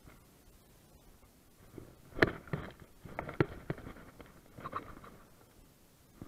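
Handling noise: a string of sharp knocks, clicks and scrapes as the camera is moved and bumped by hand, the loudest knock about two seconds in.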